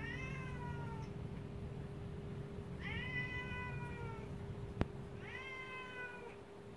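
Siamese cat meowing three times, each a long drawn-out call that rises and then slides down in pitch, directed at the dogs she isn't fond of. A single sharp click comes between the second and third meows.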